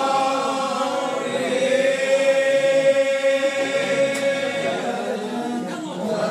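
Old Regular Baptist congregation singing a lined-out hymn unaccompanied, many voices drawing out one long held note through the middle. The phrase breaks off near the end and the next line begins.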